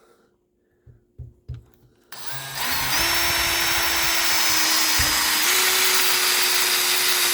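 Power drill driving a 2-1/2 in. star-drive deck screw into wood: a few light clicks, then the drill runs steadily for about five seconds, its pitch dipping briefly under load partway through.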